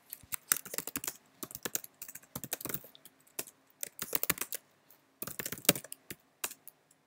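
Typing on a computer keyboard: quick runs of keystrokes with short pauses about three and five seconds in.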